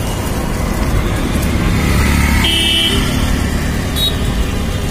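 Dust-storm wind rumbling over the microphone, with street traffic, while riding along a city road. About two and a half seconds in, a vehicle horn gives one short toot.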